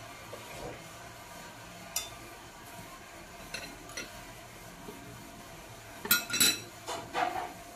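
Plastic-gloved fingers picking at grilled milkfish and rice on a platter: scattered small clicks and taps, then a louder run of clicks and smacks close together about six to seven seconds in.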